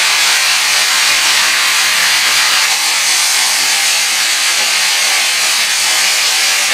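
Chicken pieces and abalone sizzling in hot oil over high heat, a loud, steady sizzle, with a wooden spatula rubbing against the wok as it turns them.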